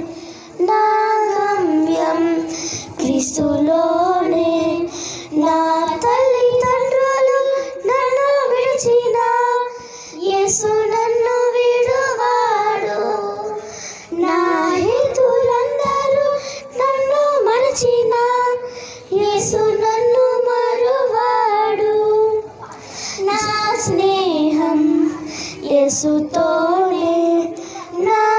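Two young girls singing a devotional song together into handheld microphones, in phrases of a few seconds with short breaks between them.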